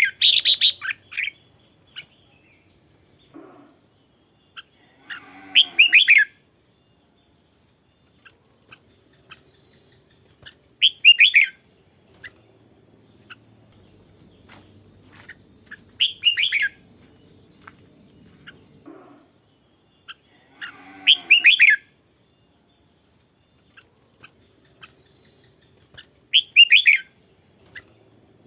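Red-whiskered bulbul singing short, bright warbled phrases, one about every five seconds, each under a second long. A steady thin high whine runs underneath, louder for a few seconds around the middle.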